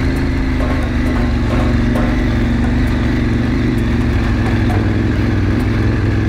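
KTM 790 Adventure Rally's parallel-twin engine running steadily at low revs, with no revving.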